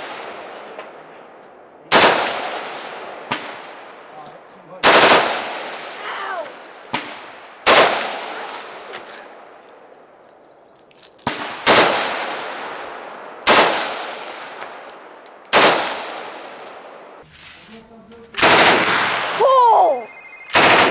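AR-style rifle firing single shots every two to three seconds, each crack followed by a decaying echo, with a longer stretch of fire near the end. Fainter cracks fall between some of the shots.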